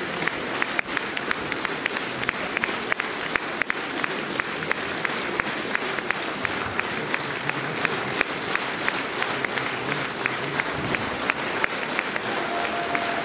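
Theatre audience applauding a curtain call: a dense wash of clapping, with one set of sharp claps close to the microphone keeping a steady beat of about three a second.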